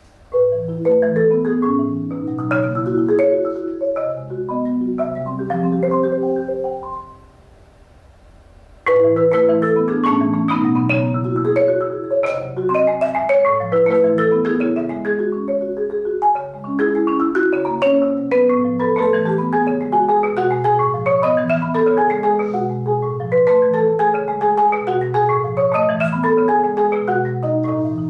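Yamaha marimba played with four mallets: fast, dense runs of notes over ringing low bass notes. About seven seconds in the playing stops for nearly two seconds, then resumes loud and continues.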